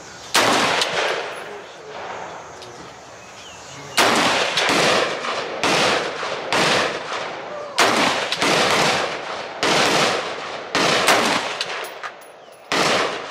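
Semi-automatic AR-style rifle fired in single shots, each with a trailing echo. One shot comes right away, then after a pause of a few seconds a steady string of about eight more, roughly one a second.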